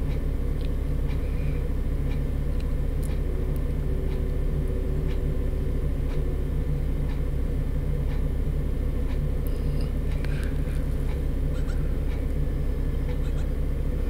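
Doosan 4.5-ton forklift's engine running steadily, heard from the cab, with a few faint clicks.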